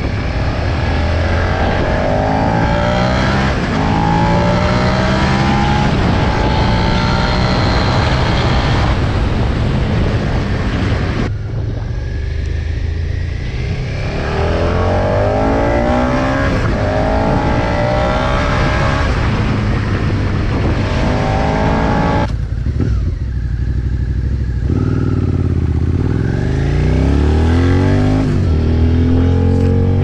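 2017 Suzuki SV650's 645 cc V-twin engine through its stock exhaust, ridden on the road and accelerating through the gears. The engine note rises again and again, dropping back at each upshift.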